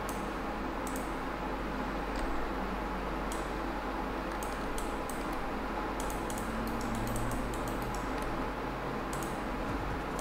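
Scattered clicks from a computer mouse and keyboard, quick runs of them near the middle, over a steady hiss and low hum.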